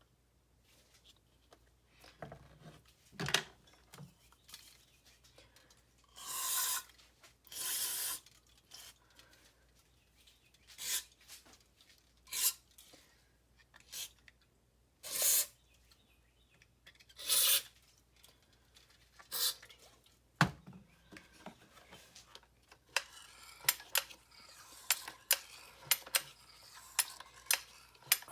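Hand work on a leaf blower's parts: scattered scraping and rubbing strokes and sharp clicks of hard parts being handled, with a quick run of light clicks near the end.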